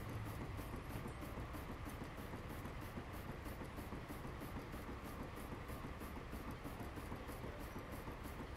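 Steam traction engine running under steam, its exhaust chuffing in a steady quick rhythm of about three beats a second over a low mechanical rumble.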